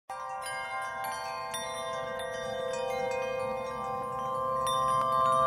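Soft ambient background music of ringing chime notes that start one after another and hang on, over a faint low sustained tone, growing slowly louder.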